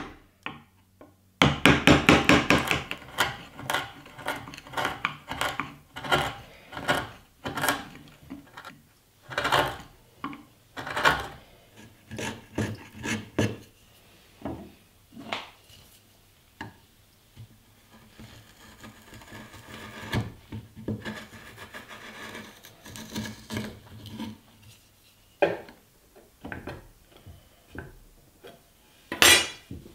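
A wood chisel cutting into oak: a quick run of sharp taps, then irregular knocks and chops. Then a stretch of softer scraping as the chisel pares the recesses by hand, with a few sharp wooden knocks near the end.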